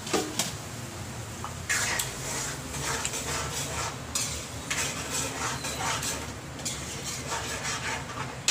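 A spoon scraping and clinking against a small cooking pan while coconut milk is stirred: an irregular run of short scrapes and taps.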